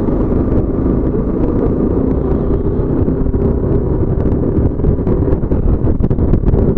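Motorcycle engine running steadily while riding, heard through a microphone inside the rider's helmet, with wind and road noise.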